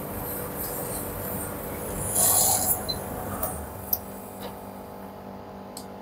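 Steady low hum of the tumble dryer, with a brief scraping, rubbing noise about two seconds in and a few sharp clicks, then quieter.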